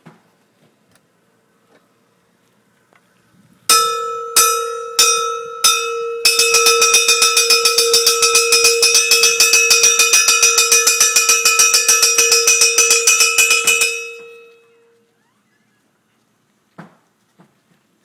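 Large camp bell hung in a wooden frame, rung by hand as the reveille wake-up signal: four slow strokes about four seconds in, then rapid, even strokes for about eight seconds, the tone ringing on and fading about a second after the last stroke.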